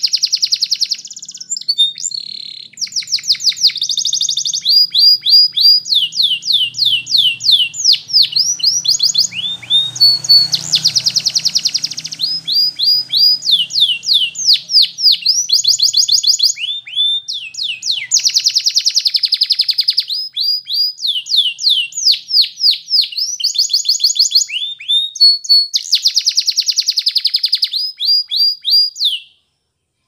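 Canary singing a long, fast song: phrases of rapidly repeated downward-sweeping notes alternate with sustained high trills, with short gaps between phrases. The song stops just before the end.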